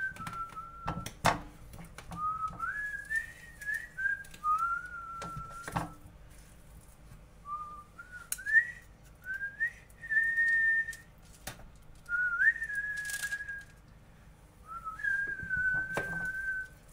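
A person whistling a slow tune in phrases of held notes with short slides between them, with a few sharp knocks now and then.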